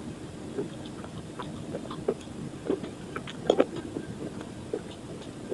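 Close-up crunching and chewing of slate pencil coated in sun-dried multani mitti (fuller's earth) paste: irregular small crisp crunches, the loudest a little past halfway.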